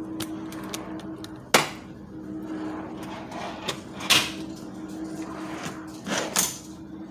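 Hinged wooden fold-down table with metal supports being swung up and set in place: a sharp knock about a second and a half in, then two more knocks and rattles near four and six seconds, over a steady low hum.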